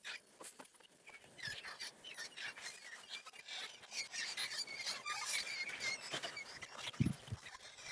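Field rats squeaking in a wire-mesh cage trap, with the wire cages clicking and rattling as they are handled. A couple of dull knocks come near the end.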